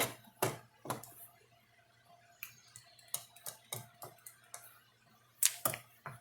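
Irregular light clicks and taps of tools and small parts being handled on a workbench, with a couple of louder knocks about five and a half seconds in.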